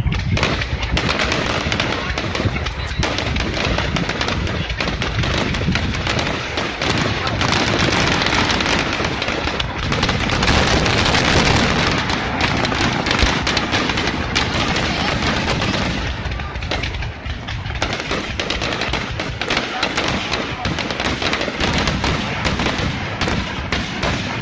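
Aerial fireworks display: a dense, continuous volley of shell bursts and crackle, at its most intense about halfway through.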